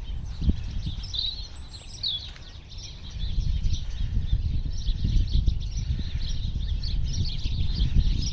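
Small birds chirping and twittering, with two clearer calls about one and two seconds in, over a loud low rumble that grows stronger about three seconds in.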